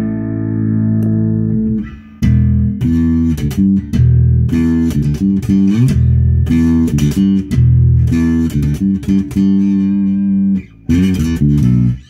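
Electric bass guitar, an Arbor copy of a Gibson Explorer bass, played through a small amp with the tone control at its middle setting. A held note dies away, then a run of plucked notes follows, some of them gliding in pitch, stopping just before the end.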